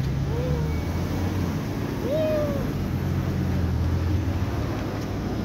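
Two short, soft animal calls, each rising and then falling in pitch, the second one louder, about two seconds apart, over a steady low hum.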